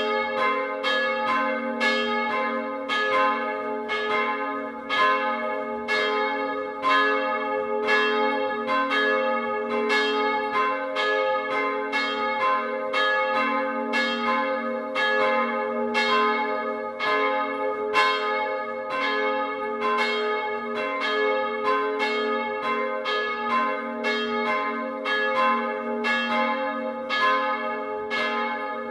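Full peal of two historic church bells swinging together, heard close up at the bells. Strikes come about twice a second, each one's ringing running on into the next.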